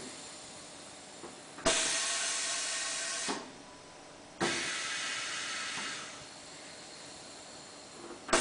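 Compressed air hissing from the pneumatic valves and cylinders of a Bright LC 885 automatic tyre changer: two sharp bursts, each starting suddenly and fading over about a second and a half, at about two and four and a half seconds in, and a third starting right at the end.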